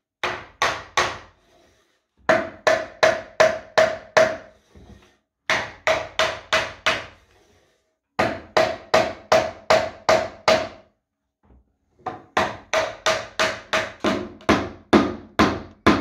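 Hammer striking a wooden block held against a reclaimed scaffold-board shelf, knocking the tight-fitting shelf onto its hidden floating-shelf bracket rods. Quick runs of sharp knocks, about three a second, come in five bursts with short pauses between them.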